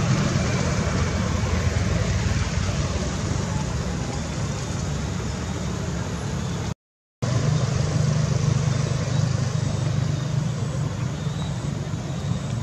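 Steady rumbling outdoor noise with a low hum, like traffic or wind on the microphone. It cuts to silence for a split second about seven seconds in.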